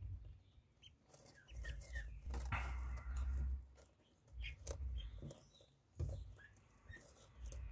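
Two-day-old ducklings peeping: short, rising cheeps come now and then, singly and in quick little runs, over a low rumbling noise.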